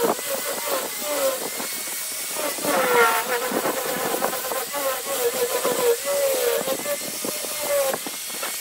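Handheld electric angle grinder with a sanding drum attachment sanding the edge of a wooden ring. Its motor whine repeatedly dips and recovers as the drum is pressed into the wood, over a steady sanding hiss.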